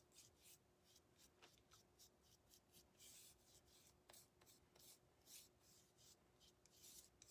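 Faint, quick strokes of a paintbrush brushing paint onto a thin wooden craft piece, several soft swishes a second.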